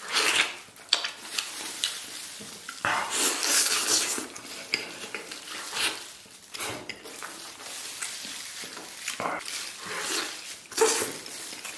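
Close-up eating sounds of a person biting and gnawing stewed lamb meat off a leg bone: irregular smacking and chewing noises, some louder bursts among quieter ones.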